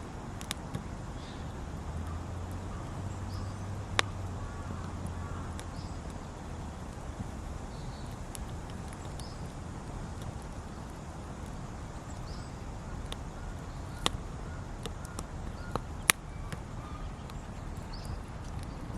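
Wood campfire burning with a steady hiss, broken by a few sharp crackling pops of the burning wood.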